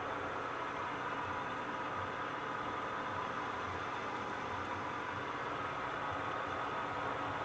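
Metal lathe running steadily with a shaft spinning in a four-jaw chuck, during a light skim cut of about a thousandth. The motor gives an even hum with several steady tones.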